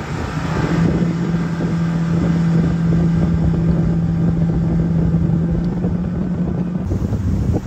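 Bass boat's outboard motor running at steady speed across open water, a steady engine hum over the rush of wind and water. Near the end the engine note drops lower as the throttle comes back.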